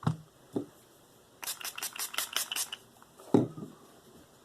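Diamond sharpening stones being swapped and set up: a couple of hard clunks, then a quick run of about eight short hissy strokes in under a second and a half, and a louder knock near the end.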